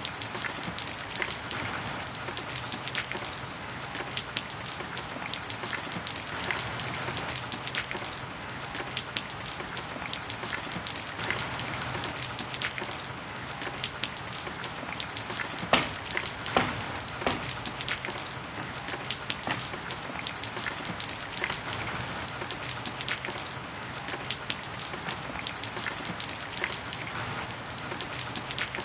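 Rain falling steadily, with many sharp, irregular drop ticks over an even hiss.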